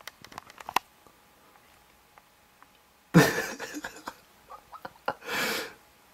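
A person breathing out hard twice close to the microphone: a breathy rush about three seconds in lasting about a second, and a shorter one near the end. Light clicks come before and between them.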